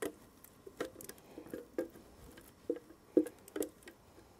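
Thick chile purée being scraped out of a blender jug with a silicone spatula and dropping onto ground pork in a metal bowl: a string of soft, irregular wet plops and taps, about two a second.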